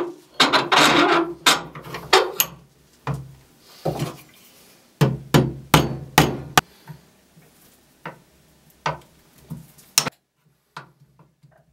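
Hammer tapping on a small steel jew's harp frame clamped in a vise: a run of sharp metal strikes, some in quick bunches, for about ten seconds, then a few faint clicks.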